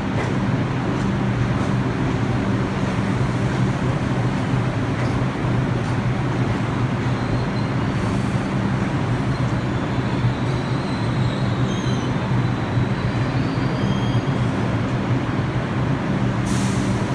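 R62 subway train at a terminal platform, a steady low hum of its running equipment with faint high squeals in the middle. A short hiss of air comes near the end.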